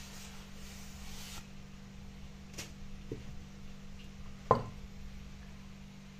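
A cloth rubbing over a wooden tabletop, then a couple of light clicks and one sharp knock about four and a half seconds in as a cast iron skillet is set down on the wood. A steady low hum sits underneath.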